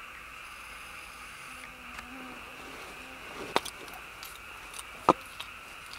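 Steady outdoor insect chorus, like crickets, as a continuous background hum, with two sharp clicks about three and a half and five seconds in.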